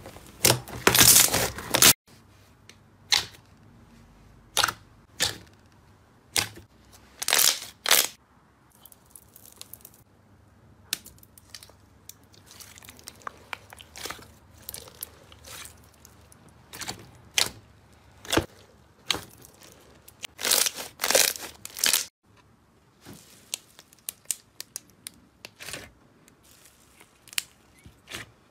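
Slime being pressed, stretched and poked by hand, giving irregular short crackling and crunching pops. The sound cuts off abruptly about two seconds in and again near the end.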